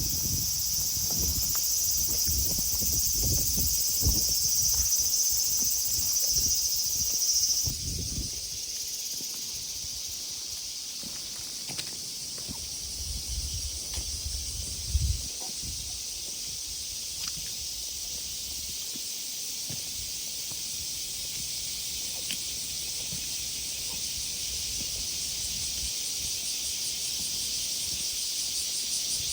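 Steady high-pitched chorus of insects, louder for the first eight seconds or so and then softer. Low rumbling bumps come through in the first eight seconds and again around fifteen seconds.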